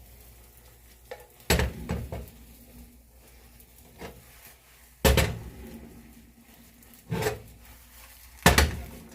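Kitchen utensil knocking against a frying pan: about five sharp clacks with brief ringing, spread a second or two apart, as the omelet is worked in the pan.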